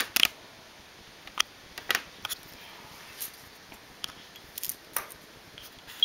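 Scattered light clicks and taps of a ballpoint pen and a sheet of paper being handled on a wooden table, a dozen or so short sounds at irregular intervals.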